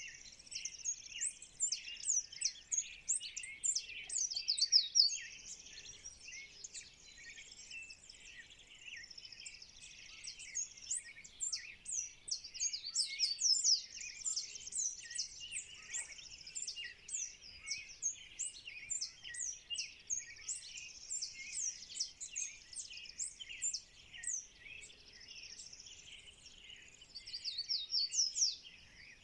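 A dawn chorus of many birds singing at once, a dense run of quick chirps and whistles with no pause.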